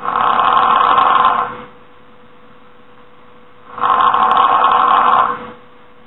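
A person snoring loudly: two long snores on the in-breath, each about a second and a half, about four seconds apart.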